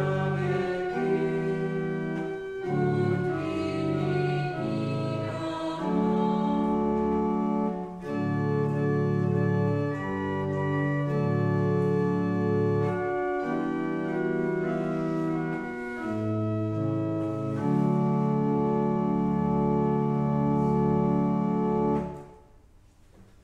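Church pipe organ playing slow, sustained chords over a deep bass pedal line, the chords changing every second or two. It ends on a long held final chord that cuts off about 22 seconds in.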